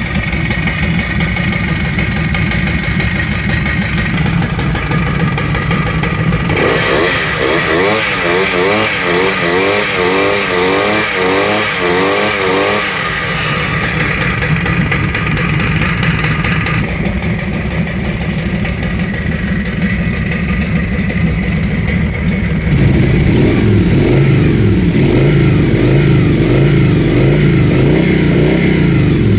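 Two 125 cc motorcycle engines, a Kawasaki Vulcan 125 four-stroke and a Carabela 125 two-stroke, running in turn. One is blipped in quick repeated revs about a quarter of the way in, and a louder engine note takes over about three quarters of the way through.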